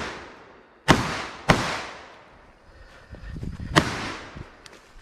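Three gunshots: two about a second in, half a second apart, and a third near four seconds, each sharp crack trailing off in a ringing echo. The echo of an earlier shot is fading at the start.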